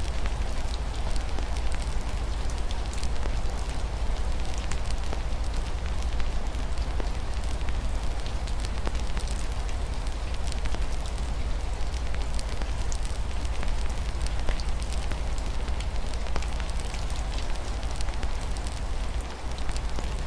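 Wood fire crackling with many small scattered pops, over a steady hiss of rain on a window and a constant low rumble.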